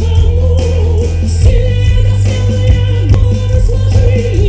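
A woman singing a song through a stage sound system over musical accompaniment with strong bass, her held notes wavering in pitch.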